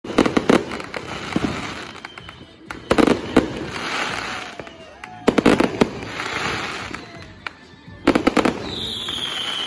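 Aerial fireworks bursting overhead: four volleys of sharp rapid bangs about two and a half seconds apart, each followed by a crackling hiss as the stars spread. Near the end a high whistle falls in pitch.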